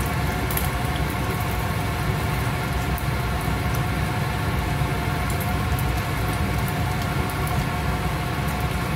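Egg frying in oil in a small nonstick pan over a gas burner: scattered crackles and pops of sizzling oil over a steady low roar and hum.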